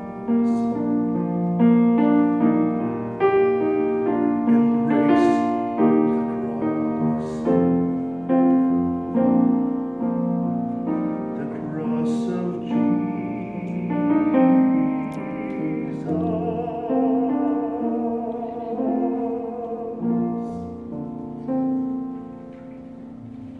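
Piano playing the closing bars of a hymn-style song, with a tenor voice coming in about halfway to hold a long note with vibrato. The music ends shortly before the close.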